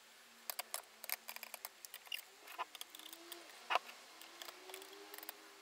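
Scattered small clicks and light rattles of plastic air tubing and push-fit fittings being handled and connected, with a sharper click a little past halfway and another at the end.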